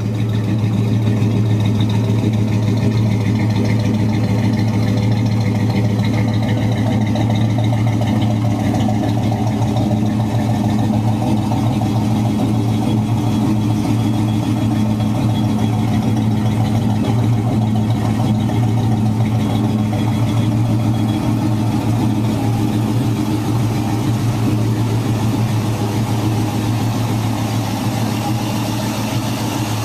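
1964 Pontiac GTO's 389 V8 with Tri-Power triple two-barrel carburettors idling steadily, with a deep, even note.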